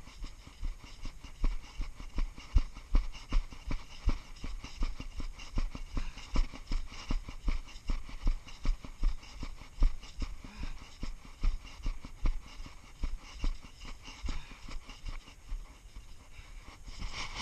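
Footsteps of a person walking briskly or jogging, an even rhythm of about two to three dull thuds a second that keeps on without a break.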